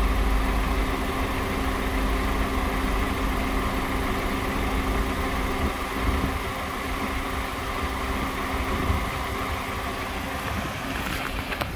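2006 Honda Accord's 2.4-litre four-cylinder petrol engine idling steadily, with a few light clicks near the end.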